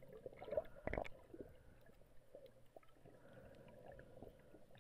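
Faint underwater ambience: scattered small clicks and pops, with one louder knock about a second in.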